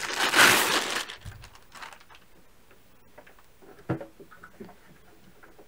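Unboxing handling noise: a burst of plastic and foam packaging rustling, then quiet small clicks and one sharper knock about four seconds in as the rack-mount receiver is lifted out of its foam insert.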